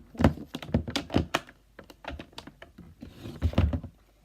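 Irregular plastic clicks and taps from handling the electronic A.D.I.S.N. spy notebook toy, its buttons and parts being pressed, in a run through the first second and a half and again in a cluster about three and a half seconds in.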